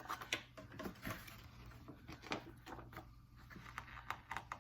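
Soft, irregular clicks and rustles of paper sheets and cards being handled and laid down.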